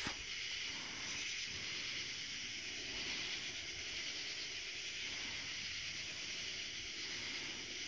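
Steady high-pitched chorus of night insects, such as crickets, with no thunder.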